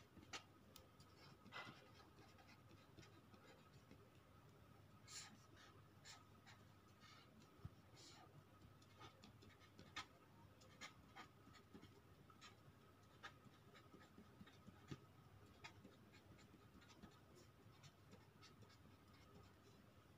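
Near silence with faint scratches and taps of a marker pen writing on paper, a stroke every second or so, over a faint steady high whine.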